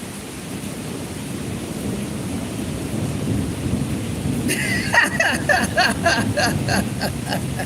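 A long low rumble of thunder, building over several seconds, over steady rain. In the last few seconds a quick run of short, repeated higher-pitched sounds joins in.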